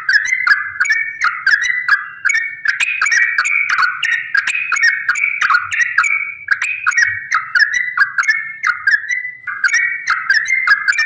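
Yellow-vented bulbul (trucukan) singing a long, unbroken run of quick, bubbly chirping notes in full 'ropel' song.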